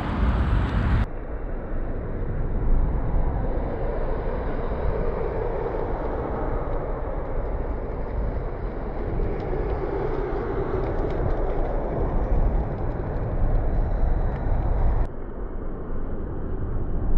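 Steady city street traffic noise, a low rumble of passing vehicles. It turns abruptly duller and muffled about a second in and again near the end.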